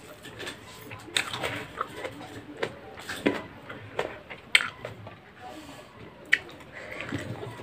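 Close-up sounds of a person eating tomato rice by hand: chewing and wet mouth sounds, broken by a few short sharp clicks, the loudest about four and a half and six seconds in.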